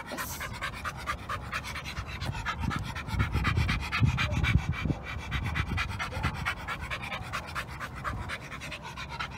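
Young pit bull panting hard with its mouth open: quick, even breaths, several a second. A low rumble rises under it in the middle.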